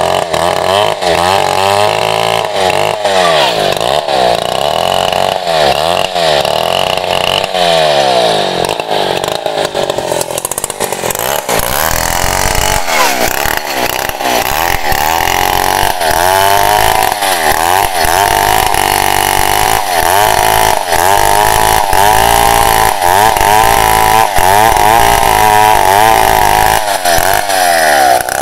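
Petrol chainsaw ripping lengthwise along a log to cut boards, the engine held at high revs and its pitch rising and dipping over and over as the chain bites into the wood and eases off.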